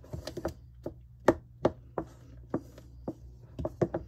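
A spoon stirring a thickening pie filling in a stainless steel mixing bowl, knocking and scraping against the bowl's side in quick, irregular taps.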